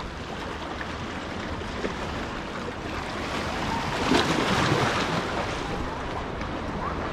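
Sea waves washing against the jetty's boulders, with wind buffeting the microphone; the wash swells louder about four seconds in.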